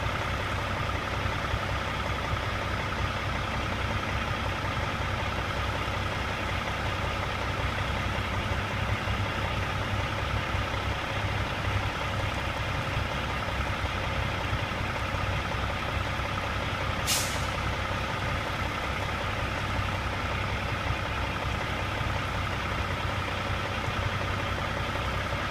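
A steady mechanical hum with a few fixed low and middle tones, unchanging throughout, and one brief sharp hiss about 17 seconds in.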